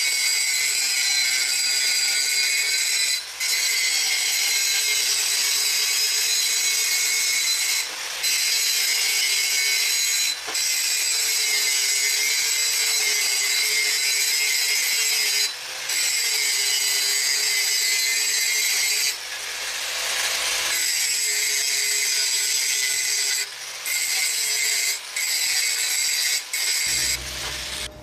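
Bosch angle grinder grinding down a flux-core weld bead on thin steel exhaust pipe: a steady high-pitched grinding noise that breaks off briefly several times, then stops near the end.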